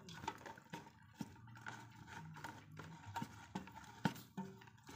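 Wooden spatula stirring steamed glutinous rice mixed with thin coconut milk in an aluminium pot, with faint, irregular knocks of the spatula against the pot.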